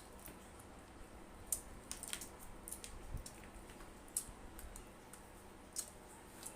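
Faint close-up eating noises from chewing crispy fried chicken: irregular sharp clicks and crackles, a second or so apart.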